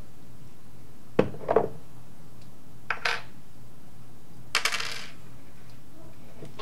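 Small metal hardware clinking and rattling as it is handled: two sharp clinks about a second in, two lighter ones near three seconds, then a brief jingling rattle about four and a half seconds in.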